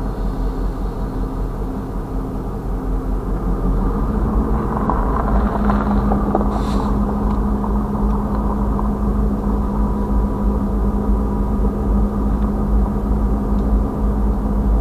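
Diesel locomotive engine running, heard from inside the cab; about four seconds in its note rises and grows louder, then holds steady.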